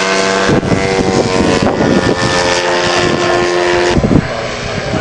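Engine and propeller of a radio-controlled flying lawnmower model running steadily in flight, with wind buffeting the microphone; the engine tone drops away sharply about four seconds in.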